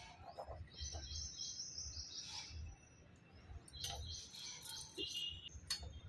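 Small birds chirping: a quick trill of high chirps about a second in, then a few scattered chirps.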